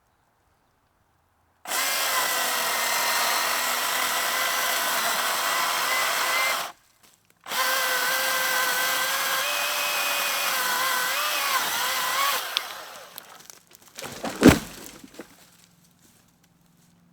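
Milwaukee M18 battery chainsaw running in two runs of about five seconds each with a short pause between, its motor whine steady and then dipping in pitch a few times in the second run as it cuts. A couple of seconds after it stops, a single loud thump.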